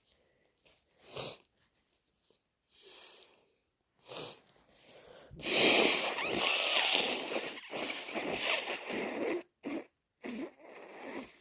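A person congested with a heavy head cold sniffing a few times, then blowing their nose loudly for about four seconds, then sniffing a few more times near the end.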